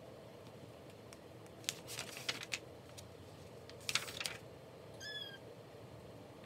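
Paper pages of a picture book being flipped, rustling in two bursts about two and four seconds in, followed about five seconds in by one short, high chirp from a cat.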